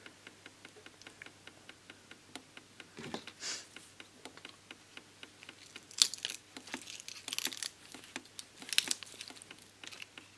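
Pliers and a circuit board being handled at a molten-solder desoldering bath: a run of small crackling clicks, with louder scrapes and rustles about three, six, seven and nine seconds in.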